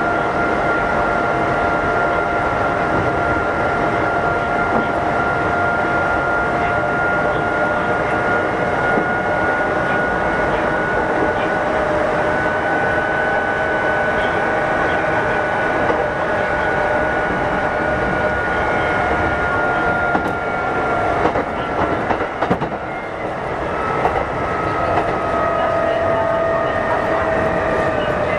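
Kintetsu 8600-series electric train running at speed, heard from inside: steady wheel-and-rail noise with a high whine that slowly shifts in pitch. The noise dips briefly a little past twenty seconds in, and the whine falls in pitch near the end.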